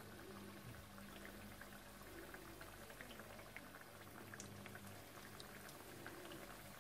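Faint sizzling of pestiño dough frying in hot oil in a frying pan, with many small scattered crackles and pops.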